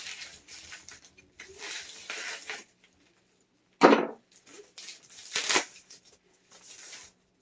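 A box and its packaging being handled and opened by hand: rustling and scraping, with a sharp knock about four seconds in and a brief hissing scrape about a second and a half later.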